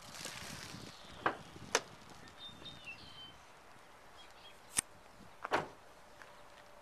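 Quiet open-air background with a short rush of wind noise in the first second, a few faint bird chirps, and several sharp clicks scattered through.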